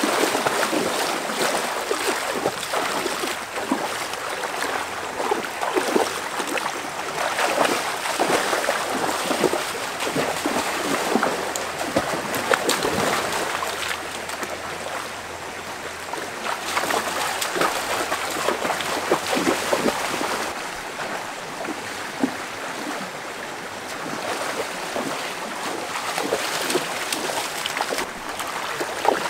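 Water splashing and sloshing as people wade and lunge through a shallow stream, over the rush of the flowing water; the splashing comes in uneven spells, easing off for a while in the middle.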